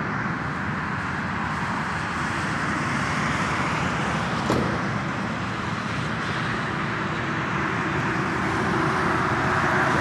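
Steady motorway traffic noise, a continuous wash of passing cars and vans, with one short knock about four and a half seconds in.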